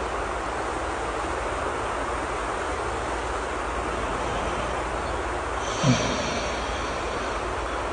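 Steady rain ambience, with a single short snore about six seconds in.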